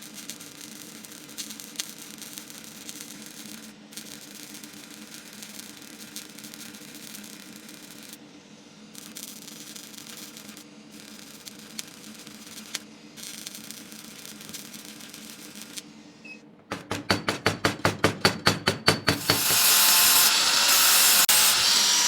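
An electric repair machine running with a steady low hum, broken by several abrupt cuts. Near the end comes a rapid pulsing of about a dozen strokes a second, then a loud, steady hiss.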